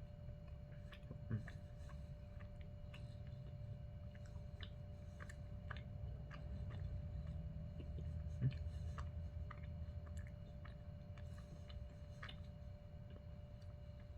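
A person chewing a chewy pecan Snickers bar (caramel, nougat, pecans, milk chocolate) with the mouth close to the microphone: many small wet clicks and smacks, with two sharper clicks, one about a second in and one past the middle, over a faint steady hum.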